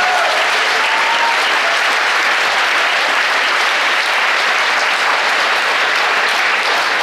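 A large congregation applauding, a steady, even clapping that holds for several seconds.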